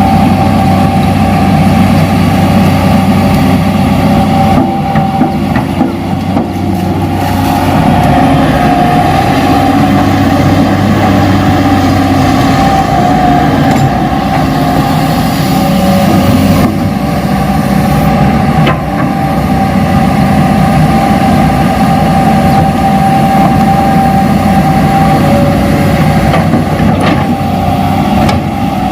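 Radio-controlled Hitachi excavator running: a steady engine-like rumble with a constant high whine over it.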